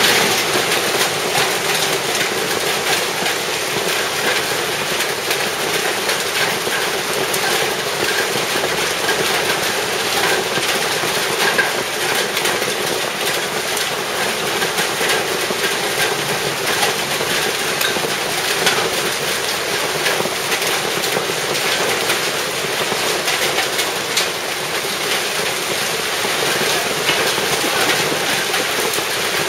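Hailstones and heavy rain pelting paving stones in a dense, steady hiss peppered with countless small sharp hits.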